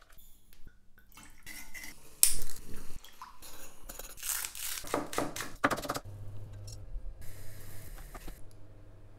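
Kitchen work sounds: liquid poured through a paper-towel-lined strainer, a spoon scraping and stirring sauce in a small steel saucepan, and a knife cutting grilled eel on a wooden board, heard as irregular clatters, scrapes and splashy noise. A low steady hum comes in about six seconds in.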